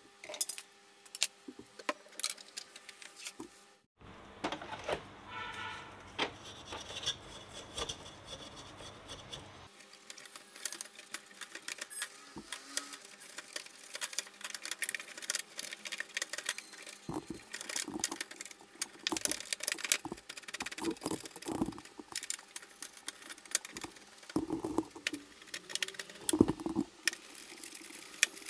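Small brush scrubbing and scraping grime off the plastic and metal parts inside an Epson inkjet printer: a continuous dry scratching with many small clicks and taps.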